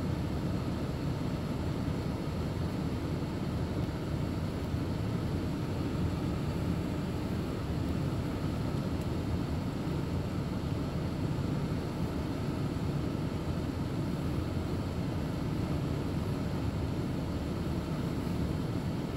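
Steady low rumble of a car in slow queued traffic, heard from inside the cabin.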